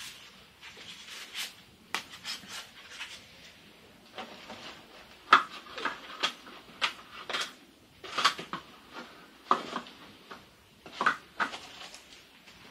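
Thin laser-cut MDF sheets and parts clacking, scraping and rustling as they are sorted through in a cardboard kit box: a string of irregular sharp knocks and clicks, a few louder ones.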